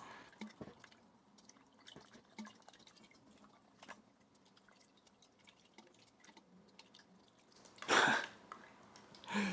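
Faint, scattered drips of water and small taps, with one short, louder rush of noise about eight seconds in.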